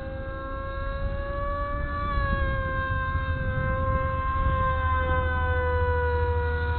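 RC Bixler's electric motor and propeller in flight: a steady whine with several overtones that rises slightly in pitch about two seconds in and drops after about five seconds. It has the rough noise that the owner puts down to a poor-quality stock propeller. Wind rumbles on the microphone underneath.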